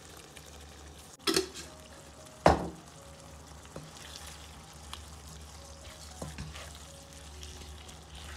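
Potatoes and radish seed pods (moongre) frying in a nonstick pan, stirred with a wooden spatula that scrapes and knocks against the pan, with two sharp knocks about a second and two and a half seconds in and lighter taps after. A steady low hum runs underneath.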